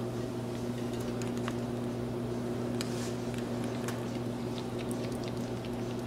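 African grey parrot eating oatmeal from a metal spoon: faint, scattered small clicks and ticks of beak and spoon, over a steady low electrical hum.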